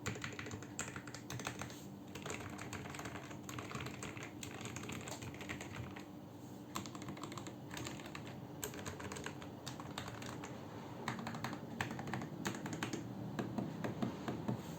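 Typing on a Vortexseries GT-8 75% mechanical keyboard with lubed Outemu Red linear switches and Durock plate-mount stabilizers: a steady run of keystrokes that becomes louder and denser in the last few seconds.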